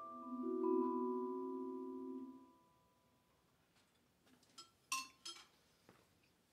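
Musser vibraphone: a closing low chord struck with four mallets just after the start, ringing for about two seconds before it is damped off. Near the end come a few light clicks and a brief bar tone as the mallets are laid down on the bars.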